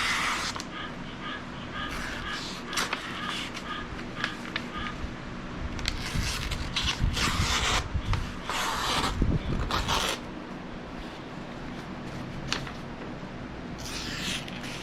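A knife blade slicing and scraping through a sheet of damp paper in a series of short rustling strokes, a sharpness test on a freshly restored survival knife.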